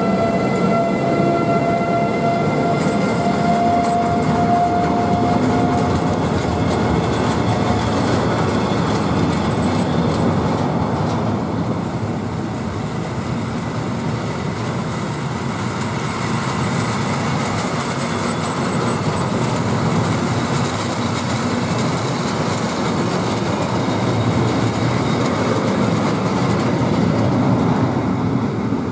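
Freight train passing close by: the wagons' wheels roll over the rails in a loud, steady rumble. At the start, the Class 189 electric locomotive adds a whining set of steady tones from its traction drive, which fade away over the first eight seconds or so as it moves off.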